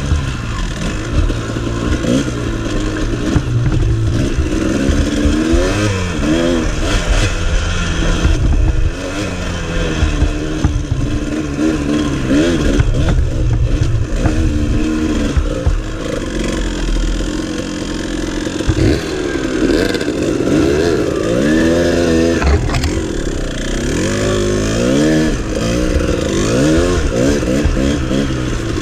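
Dirt bike engine heard from on board while riding, revving up and falling back again and again as the throttle is opened and closed.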